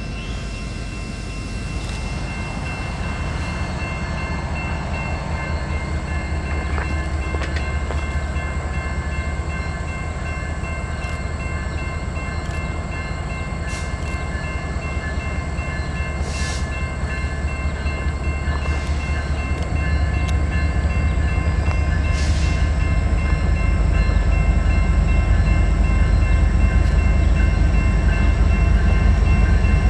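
Approaching train, its locomotive rumble deep and growing steadily louder, with a step up about two-thirds of the way through.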